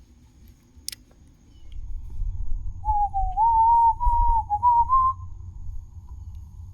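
A person whistling a short, wavering tune for about two seconds, starting near the middle, over a low rumble of wind buffeting the microphone.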